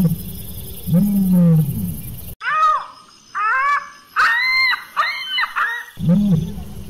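Animal calls: deep, drawn-out rising-and-falling calls over a noisy background that cut off abruptly about two seconds in. A run of higher, whining calls follows, about a dozen short arched cries. Then the deep calls return just as abruptly near the end.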